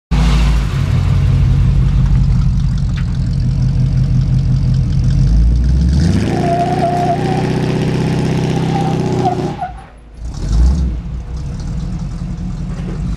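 Chevrolet squarebody pickup's engine running at low revs behind the truck, then revving up about six seconds in and holding higher as the truck pulls forward. The sound drops briefly about ten seconds in before a low engine rumble returns.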